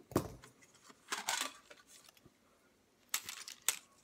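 Round metal 16mm film can being handled and opened: a clank as it starts, a scraping rub of the lid about a second in, and two short metallic clicks near the end.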